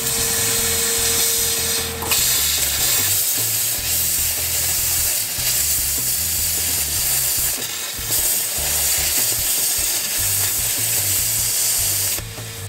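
Victor Thermal Dynamics Cutmaster 42 plasma cutter cutting the steel frame of a trailer: the arc hisses steadily over a low rumble, breaking briefly about two seconds in and again near eight seconds. The hiss stops near the end.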